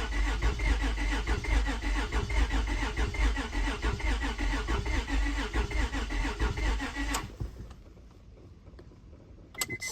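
2003 Honda Odyssey's 3.5-litre V6 cranking over on the starter for about seven seconds without catching, then the starter stops. It turns over but won't fire because the engine has no spark.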